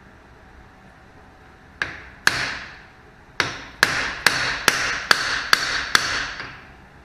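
Hammer striking a steel seal driver, driving a new axle seal into the end of a classic Ford Mustang 8-inch rear axle housing. Nine ringing metal blows: two spaced strikes, then a steady run of about two a second.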